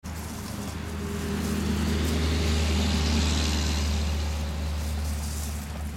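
A motor vehicle passing by on the road: a steady low engine hum with tyre noise that swells to its loudest about halfway through and then fades.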